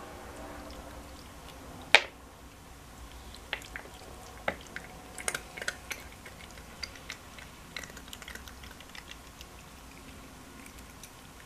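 A cat eating from a plate, chewing with many small irregular crunchy clicks. There is one sharp knock about two seconds in, the loudest sound.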